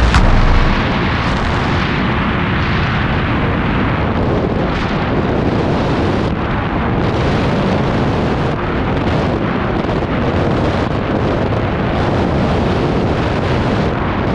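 Loud, steady rush of freefall wind blasting across the camera microphone.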